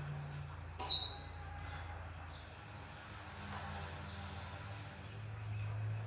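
Small caged finches, canaries, giving short high chirps again and again over a steady low hum. A sharp tap comes with a chirp about a second in.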